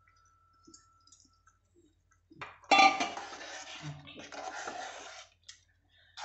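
Metal spoon stirring rice in a pressure cooker, scraping and clinking against the pot, loudest a little under three seconds in.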